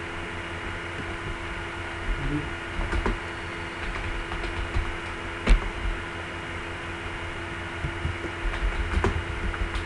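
Computer keyboard and mouse clicks, scattered and light, with one sharper click about halfway through, over a steady electrical hum and room noise.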